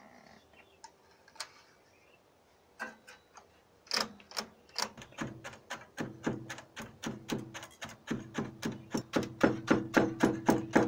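Metal comb beater striking down through the warp threads of a hand-knotting carpet loom, packing in the weft. It makes a quick run of sharp taps, about four a second, that starts about four seconds in and grows louder, after a few faint clicks.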